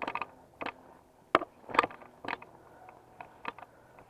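Irregular clicks and knocks from a loose camera mount rattling as the wearer walks, with the two loudest knocks a little under two seconds in.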